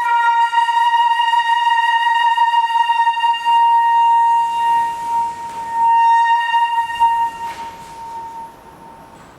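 Flute playing one long, high held note that starts suddenly and fades out near the end.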